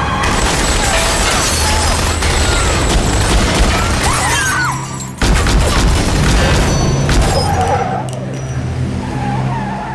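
Rapid gunfire with glass shattering, fired from a passing SUV, over a tense film score; a heavy low boom hits about five seconds in, and the music carries on more quietly near the end.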